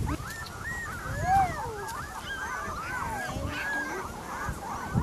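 A litter of Dalmatian puppies whimpering and squeaking together: many short, high, rising-and-falling cries overlapping one another, with one lower, louder cry about a second and a half in.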